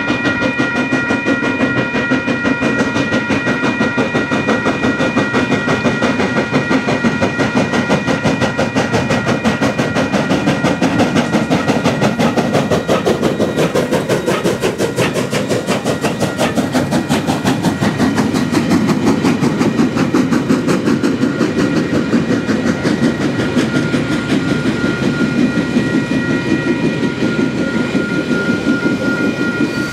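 Steam locomotive working hard as it passes close by, its exhaust beats coming fast and even over the rumble and clatter of the train's wheels. Level-crossing warning bells ring over it and stop near the end.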